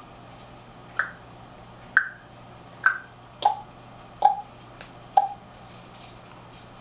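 African grey parrot making short popping clicks with its beak and tongue, about one a second, six in all; the last three are lower in pitch than the first three.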